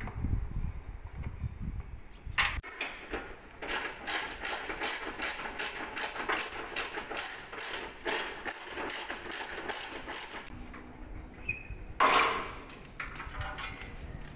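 Hand ratchet wrench clicking in a long, fast run as bolts are worked loose, with a knock before it and a loud clunk near the end.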